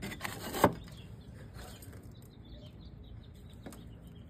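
A short scrape ending in one sharp knock about half a second in, then faint bird chirps over quiet outdoor background.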